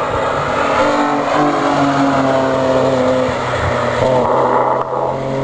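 BMW M3 engines running hard as the cars go past on a racetrack, their intake sound loud. More than one engine is heard at once, each holding a fairly steady pitch with slight falls as it goes by.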